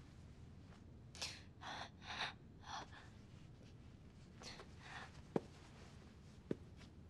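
Short soft rustles, four in quick succession and two more a little later, then two small sharp clicks about a second apart, in a quiet small room.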